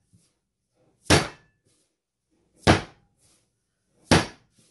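Ball of bread dough slammed down hard onto the kitchen counter three times, about a second and a half apart, as part of kneading.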